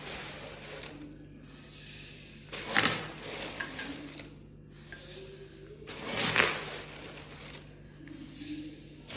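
Granulated sugar being scooped from a plastic bag with a steel bowl and poured into a steel pot: gritty scraping and crinkling plastic, with two louder scoop-and-pour sounds about three and six seconds in.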